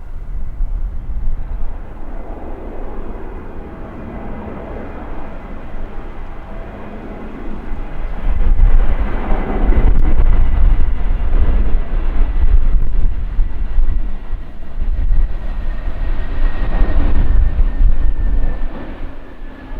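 Jet airliner on landing approach: engine noise with a thin high whine that slowly falls in pitch as it passes. A heavy low rumble swells in about eight seconds in and stays loud.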